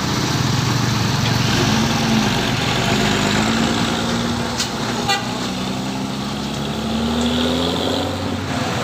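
Mercedes-Benz coach's diesel engine pulling away under hard throttle, its drone rising slowly in pitch as the bus gathers speed, with a short click about five seconds in.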